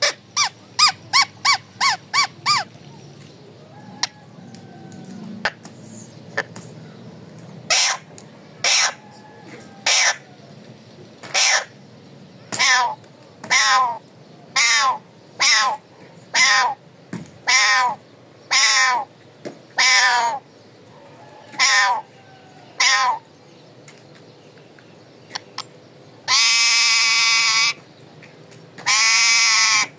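Alexandrine parakeet calling: a quick run of short harsh squawks, then single squawks about once a second, ending in two long, loud drawn-out screeches.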